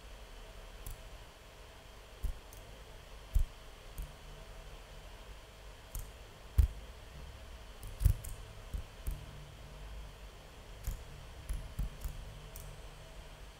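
Sparse, irregular clicks and soft knocks, a dozen or more at uneven spacing, over a faint steady hum. The sharpest comes about a third of the way through, the loudest about halfway through.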